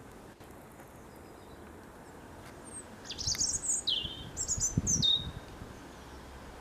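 A robin singing one short burst of quick, high notes, many of them falling in pitch, starting about three seconds in and lasting about two seconds.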